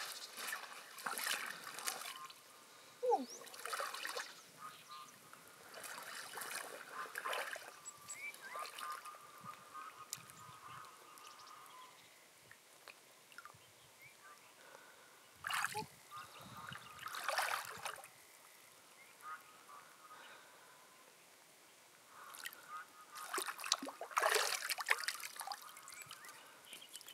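Water splashing and sloshing in uneven bursts as a person wades through a shallow pond and reaches down into the water. Earlier, footsteps crunch on gravelly soil.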